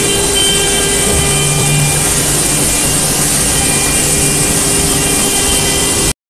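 Semi-automatic vacuum packaging machine running: a steady drone from its vacuum pump with a high hiss, a lower hum joining about a second in. It cuts off suddenly just before the end.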